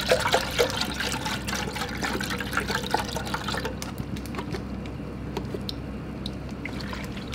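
Soy milk poured from a carton into a metal pot and swirled by hand, splashing and sloshing. The pouring is busiest for the first four seconds or so, then thins to softer swishing and drips.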